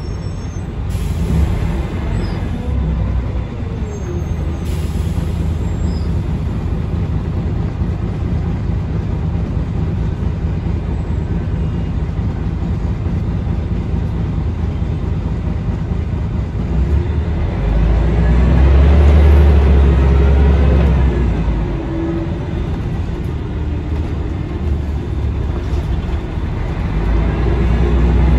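Interior sound of a Scania L113CRL city bus underway: the rear-mounted 11-litre six-cylinder diesel runs with a steady low drone and road noise. The rumble grows louder about two-thirds of the way through, and again near the end.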